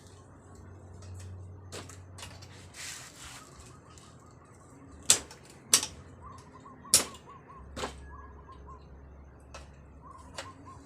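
Sharp knocks and clicks from hands-on work on an old bicycle, with four loud knocks in the middle and a brief scraping sound a few seconds in. Small birds chirp faintly in the background.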